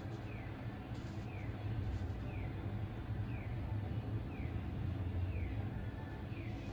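Steady low hum, with a faint short high chirp that falls in pitch and repeats about once a second.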